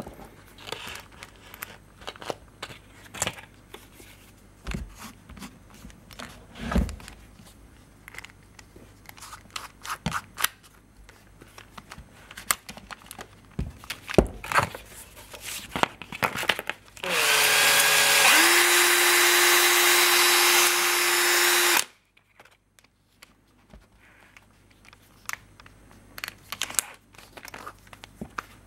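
Small clicks and clinks of metal rivets being picked over and a cordless drill's chuck being tightened. About two-thirds of the way in, the Makita cordless drill spins up and runs steadily for about five seconds with a rivet in its chuck held against sandpaper: a loud hissing scrape over the motor whine, which cuts off abruptly.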